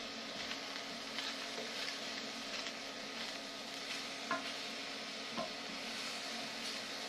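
Sliced onions and mushrooms sizzling in olive oil in a frying pan while being stirred with a silicone spatula, with two light knocks about four and five seconds in.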